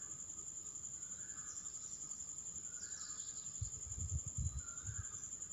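Steady high-pitched insect trill in the background, with a short chirp repeating about every second and a half. In the second half come soft low thumps and rustling as grated raw mango is scraped by hand from a steel bowl into a ceramic bowl.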